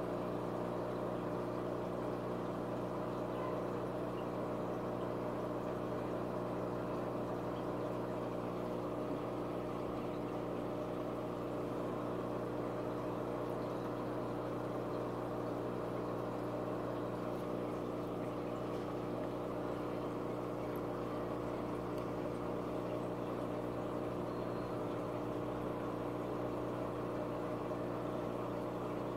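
Aquarium pump running: a steady low electric hum with a soft rushing hiss over it.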